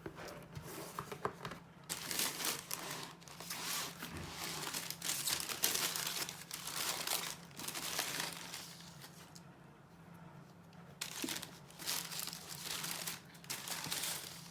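Wrapping being handled and crinkling in irregular bursts while the sneakers are unpacked, with a quieter pause partway through, over a faint steady low hum.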